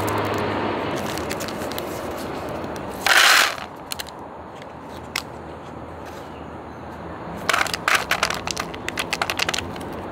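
Foil snack packets handled by hand: a short loud rip as one is torn open about three seconds in, then a run of crinkles and crackles near the end.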